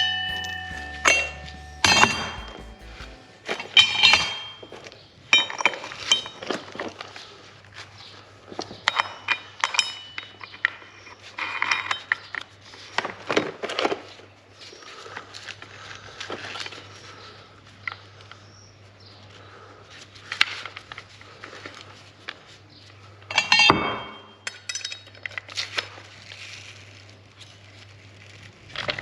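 Irregular clicks, clinks and knocks of hard plastic and metal parts being handled, some with a brief metallic ring, over a faint steady hum. The sander motor is not running.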